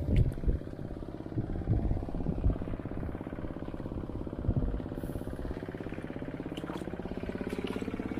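Engine of a hand tractor ploughing a rice field, running steadily with its pitch edging up near the end. There are a few low thuds in the first couple of seconds.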